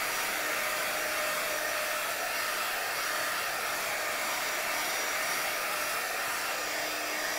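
Marvy craft embossing heat gun blowing steadily, its hot air shrinking plastic wrap onto a game box.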